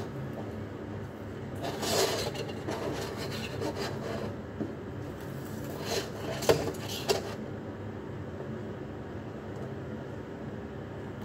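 Self-adhesive LED strip being pressed onto the edge of a wooden shelf while its backing paper is peeled off: rubbing and rustling in two spells, the second ending with a couple of sharp ticks.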